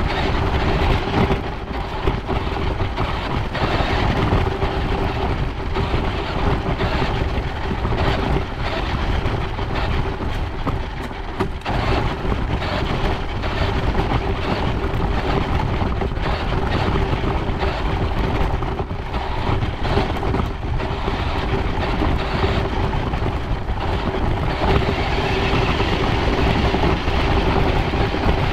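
Scale RC side-by-side driving along a dirt trail, heard from a camera riding inside its cab: a steady mid-pitched whine over continuous running noise, with frequent short knocks and rattles from the bumps.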